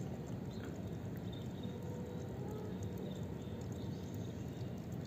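A cat drinking from a dripping pipe: faint, scattered small ticks of dripping water and licking over a steady low background rumble.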